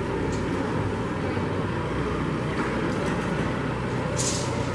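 John Deere utility tractor's diesel engine running steadily at low speed as it tows a utility trailer, with a brief high hiss near the end.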